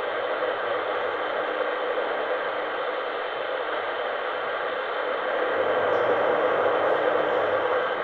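Shortwave radio receiver giving out a dense, steady rush of noise on the frequency. It gets a little louder about two-thirds of the way through. The title names this the weird noise of an unknown transmitter heard near Iran International's broadcast.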